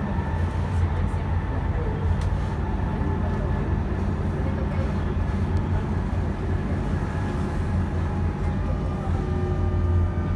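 A tram running, heard from inside the passenger car: a steady low hum with rolling noise, and faint whining tones that change pitch near the end.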